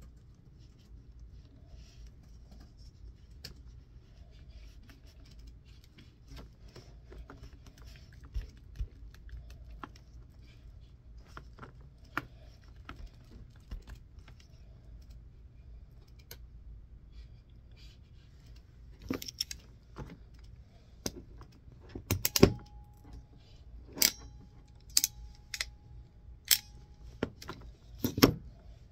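Light clicks and rattles of small metal and plastic parts being handled while a shielded Cat 6 cable is terminated into its connector. A run of sharper, louder clicks comes in the last ten seconds.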